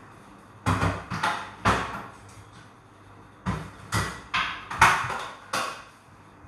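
Rice cooker being loaded: the inner pot is set into the cooker and the lid shut. It comes as a string of sharp clunks and knocks, four in quick succession, then after a pause five more, the loudest near the end.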